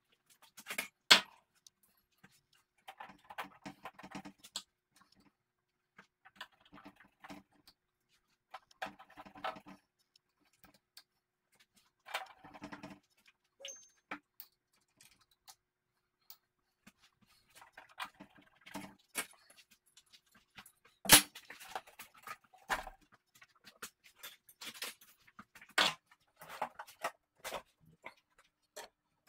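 Intermittent workshop handling noises from TV parts being reassembled: sharp clicks and knocks of metal parts and screws, with short squeaky rubbing patches between them, the loudest knock a little past the middle.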